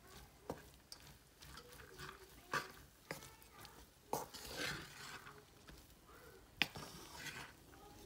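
Wooden spatula stirring and scraping fried rice around a metal pan, with a few sharp knocks of the spatula against the pan.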